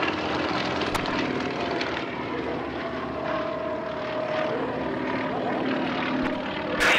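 Sukhoi aerobatic planes' nine-cylinder radial engines and propellers running in flight overhead: a steady engine sound with faint held hums, and a single click about a second in.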